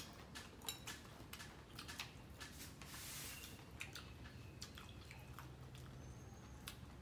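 Quiet eating sounds: chewing, with small clicks of chopsticks against bowls and plates, and a brief crunch about three seconds in from crisp shrimp crackers.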